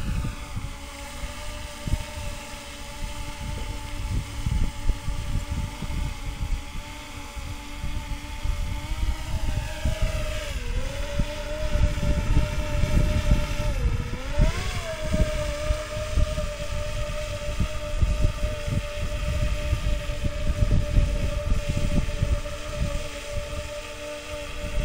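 DJI Phantom 3 Professional quadcopter hovering: a steady propeller whine that dips in pitch twice, about ten and fourteen seconds in, the second time swinging up briefly before settling back. Wind rumbles on the microphone underneath.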